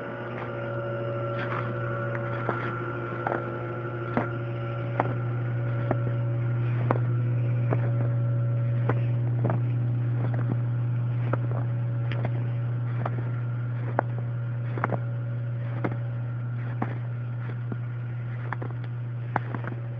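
Sharp, irregular cracks and snaps, many in a row, over a steady low hum. The cracks are typical of snow-laden tree branches breaking.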